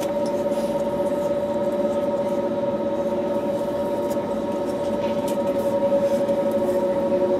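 Airbus A321neo cabin noise while taxiing, its Pratt & Whitney PW1100G geared turbofan engines at low power giving a steady whine over an even hiss.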